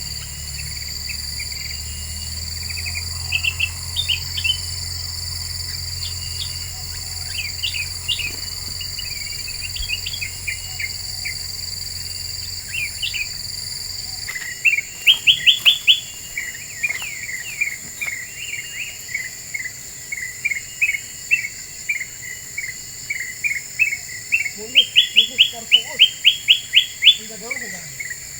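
Kutilang emas, a bulbul, calling in short, quick chirps, with bursts of rapid chirp runs, over a steady high insect drone. About halfway a low hum cuts off abruptly and the chirping grows busier.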